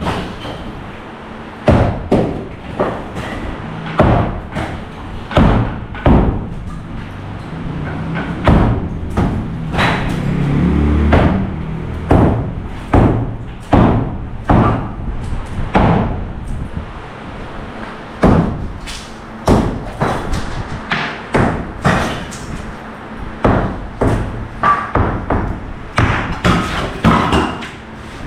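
Demolition work: a long run of heavy thumps and knocks, irregular, roughly one a second, with a brief low rumble about ten seconds in.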